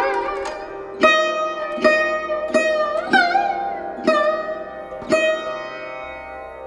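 Instrumental background music: a plucked string instrument playing single notes about one every second, each ringing and fading, with some notes bent in pitch.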